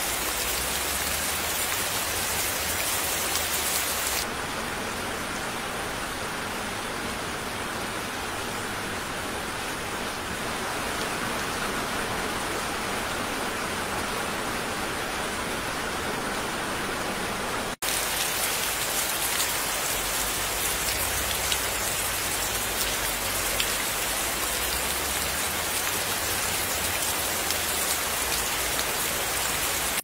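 Steady rain falling, with individual drops pattering through it. The sound turns duller about four seconds in. A little past the middle there is a split-second dropout, and the rain comes back brighter.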